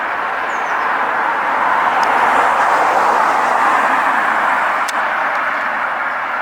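Steady rush of passing road traffic, swelling about two seconds in and easing off near the end, with a couple of faint high bird chirps early on and a single click about five seconds in.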